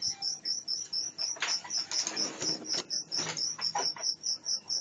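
An insect, such as a cricket, chirping in a steady, even rhythm of about five high-pitched chirps a second, with a few brief, softer noises in the middle.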